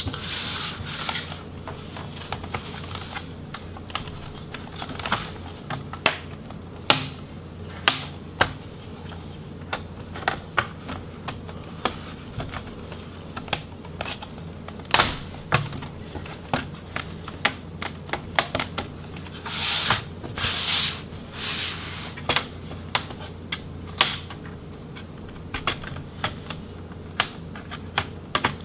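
Plastic snap clips of a Toshiba Satellite L50D's bottom case clicking loose one after another as the case is pried away from the palm rest. The clicks come at irregular intervals, with a few short scraping rubs of plastic on plastic.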